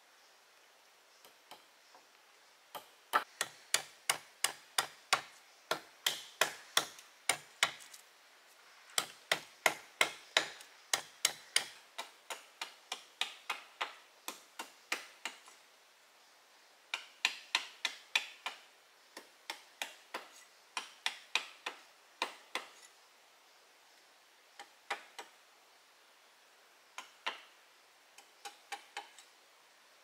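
A hand tool striking a wooden pole over and over, sharp knocks about two to three a second in runs of several seconds with short pauses, thinning to a few scattered strikes near the end.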